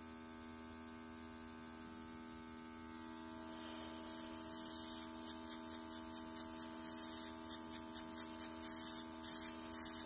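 Airbrush makeup compressor running with a steady hum. From about four seconds in, the airbrush hisses in a string of short spurts as air and makeup are sprayed through a brow stencil.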